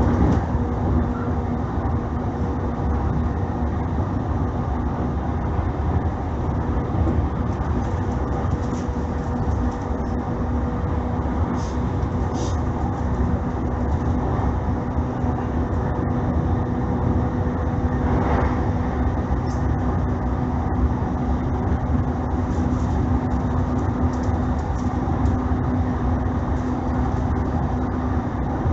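JR East E531 series electric multiple unit running at a steady speed: a continuous rumble of wheels on rail with a constant hum that stays at one pitch, and a brief swell in the noise about two-thirds of the way through.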